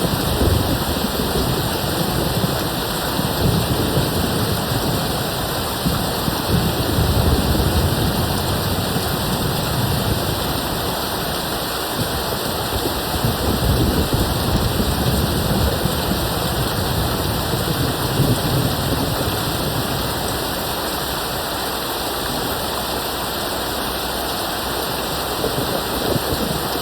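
Steady heavy rain with distant thunder rumbling low and coming and going in waves, dying down over the last several seconds.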